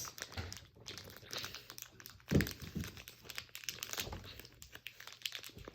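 Plastic packaging of a pack of Nerf foam darts crinkling and tearing in irregular crackles as it is pulled open by hand, a stiff pack that is hard to open. There is one louder knock a little over two seconds in.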